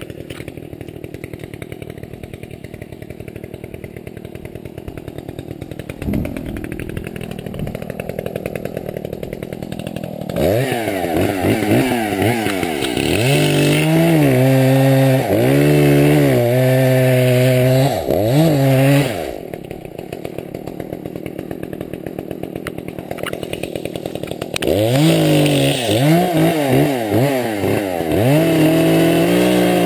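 Gas chainsaw idling with a fast, even pulse, then revved up and down several times. It drops back to idle, and near the end it is revved again and held high.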